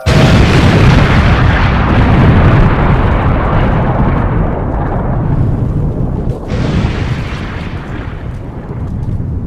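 A sudden loud explosion, then a long low rumble that slowly fades over several seconds, with a second swell of hiss about six and a half seconds in.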